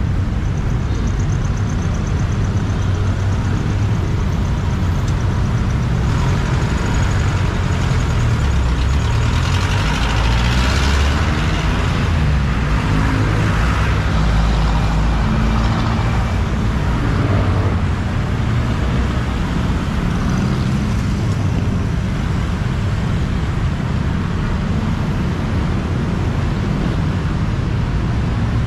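Heavy street traffic: jeepneys, cars and motorcycles driving past close by, a steady low engine rumble. A louder vehicle passes about ten seconds in, and a jeepney's diesel engine goes by a few seconds later.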